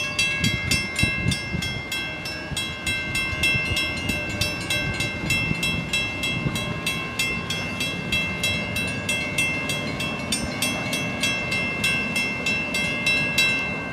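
Level-crossing warning bells ringing steadily at about three strikes a second while the crossing gates rise after the train has passed, stopping near the end. A low rumble lies beneath.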